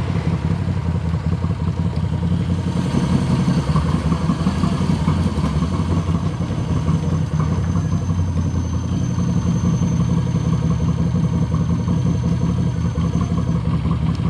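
Moto Guzzi V7's air-cooled transverse V-twin running steadily at low revs.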